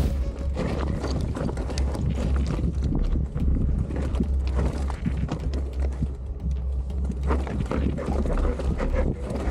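A Zerode Taniwha enduro mountain bike picking its way down a rocky trail, heard from a camera mounted on the rider. Tyres knock and crunch over loose stones and the bike rattles with many irregular clicks and clatters, over a steady low rumble of wind and handling on the microphone.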